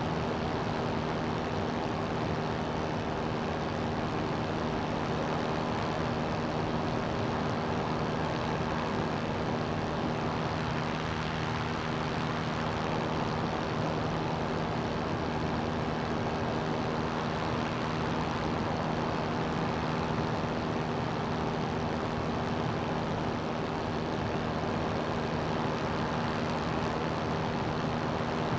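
CGS Hawk ultralight's engine and propeller holding a steady drone in flight, under an even rush of wind noise.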